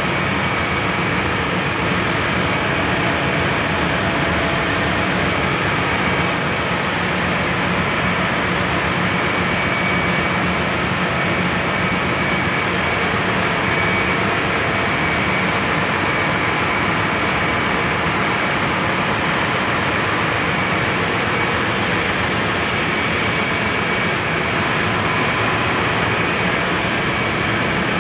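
Steady, even roar of ship's engine-room machinery with the waste-oil incinerator's burner firing, and a faint steady whine running through it.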